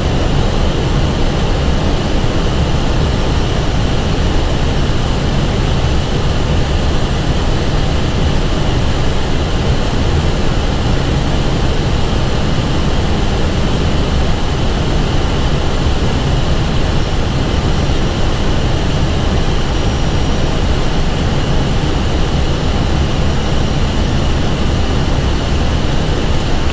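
Steady cockpit noise of an Airbus A320 on approach: an even rush of airflow and air conditioning with a low hum underneath and a faint steady high hiss, unchanging throughout.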